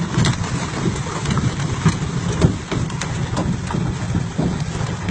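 Dozens of silver carp leaping and splashing back into the water, a dense, irregular patter of splashes with sharper slaps among it, over the steady low running of an outboard motor.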